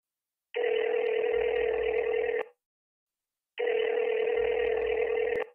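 Telephone ringing tone heard down the line while a call waits to be answered: two long, steady rings of about two seconds each, about a second apart.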